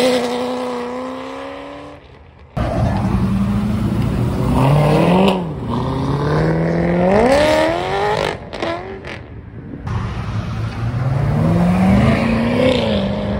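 Chevrolet Corvette V8 engines accelerating away one car after another, each exhaust note rising in pitch as it revs up through the gears. The sound drops away briefly about two seconds in as one clip gives way to the next.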